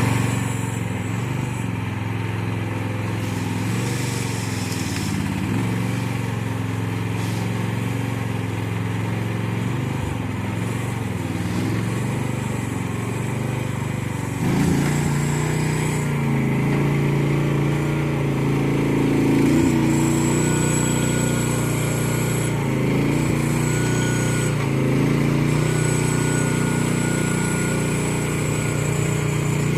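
Chinese mini excavator's engine running steadily, then stepping up in speed and loudness about halfway through as it works. Thin high whines come and go over the engine in the second half.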